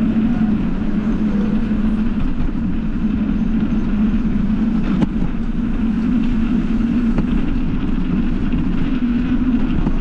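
Steady rushing and rumbling of a bike rolling along a street: wind on the microphone and road noise, with one brief click about halfway through.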